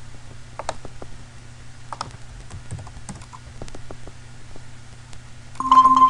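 Scattered clicks and taps of a computer mouse and keyboard. Near the end, a louder steady electronic alert tone starts from the Avast antivirus program as it blocks a malicious web address.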